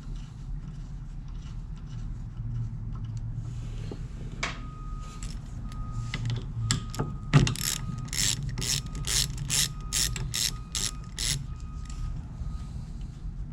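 Ratchet wrench clicking in quick, even strokes, about two to three clicks a second for several seconds, as a 5/16 bolt on a metal lathe's carriage is backed out.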